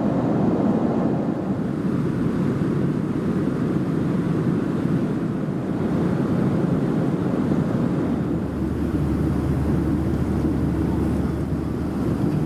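Steady engine and airflow noise of a Boeing 737 in flight, heard inside the passenger cabin. A low hum joins underneath about eight seconds in.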